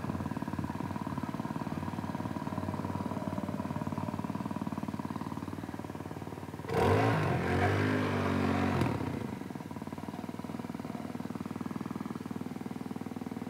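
Small petrol engine of a water pump set running steadily after the pump has been primed with water. About seven seconds in it runs louder for roughly two seconds with a shifting pitch, then settles back to its steady run.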